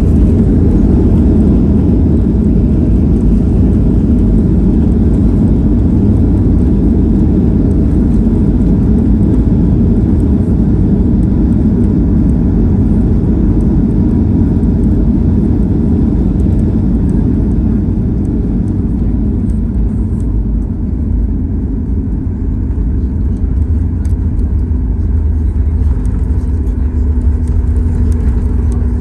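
Cabin noise of a Boeing 737 slowing on the runway after touchdown, with its spoilers raised: a loud, steady rumble of engines and wheels on the runway. The rumble eases about two-thirds of the way through as the aircraft slows, and a steady low hum comes in near the end.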